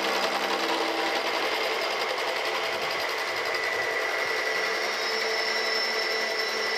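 Face mill on a vertical milling machine cutting across the top face of a metal casting, flattening it: a steady cutting and machine-running noise with a fast, even rhythm from the cutter.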